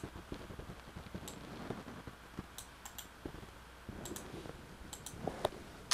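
Scattered computer keyboard and mouse clicks: a handful of separate keystrokes and clicks, irregularly spaced rather than steady typing.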